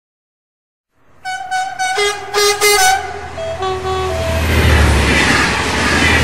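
A horn sounds a rapid string of short toots at several different pitches, like a little tune, starting about a second in. A steady low rumble then builds and takes over from about four seconds in.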